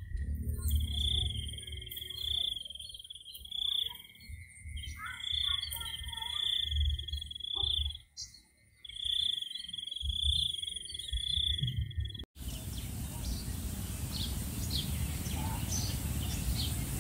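Insects droning in a steady, high, pulsing tone that breaks off briefly twice, over a low rumble. About twelve seconds in the sound cuts abruptly to a hissing background with short high chirps.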